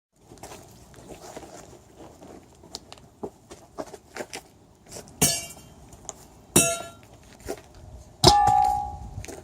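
Metal objects clanking and being handled: a string of light knocks and clicks, then three loud metallic clangs. The last one rings on for about a second.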